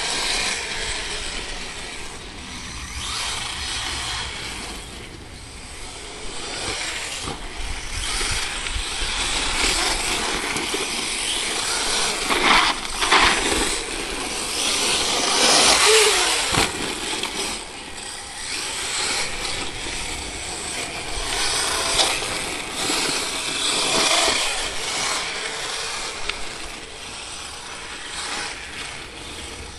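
Small radio-controlled off-road truck's motor buzzing as it drives laps of a dirt track, speeding up and easing off again and again, with a falling pitch about halfway through as it slows.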